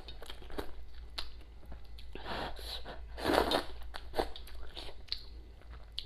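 A person slurping up rice noodles from a bowl and chewing, with short wet mouth clicks and two longer slurps about two and three seconds in.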